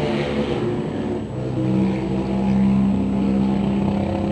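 Racing quad engines running, several engine notes at once; one engine settles into a steady, strong note from about one and a half seconds in.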